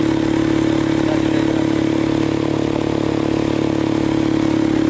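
ATV engine running at a steady pitch, held at constant throttle.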